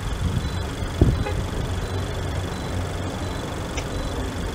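Car engine idling steadily while it charges a dead semi truck's batteries through jumper cables, with one sharp knock about a second in.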